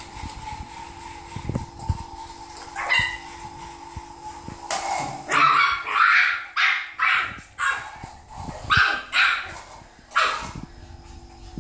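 Yorkshire terrier puppy barking: a quick run of about a dozen short, high yaps, roughly two a second, starting about five seconds in, with a few light knocks before it.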